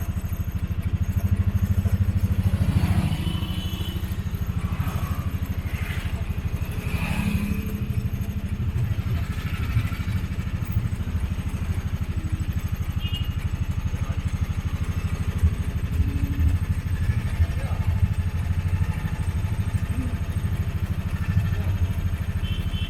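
Motorcycle engine running steadily up close, with a low, even pulsing throughout.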